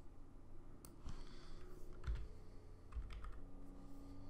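A few separate clicks from a computer keyboard and mouse as the artist edits in a drawing program, with a faint low hum coming in near the end.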